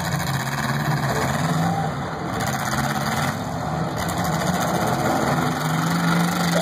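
Engines of several demolition derby cars running, a steady low drone.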